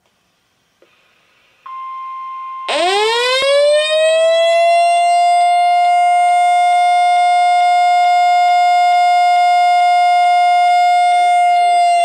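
Midland 74-105XL weather radio going into alert: a click and brief static, then NOAA's steady 1050 Hz warning alarm tone through the radio's speaker. About a second later the radio's own siren swoops up and holds a loud, steady wail over it. The broadcast tone stops shortly before the end, and the siren starts to drop in pitch near the end.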